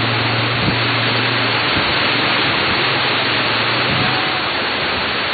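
Typhoon wind and heavy rain, a steady rush of noise buffeting the microphone, with a low steady hum underneath that stops about four seconds in.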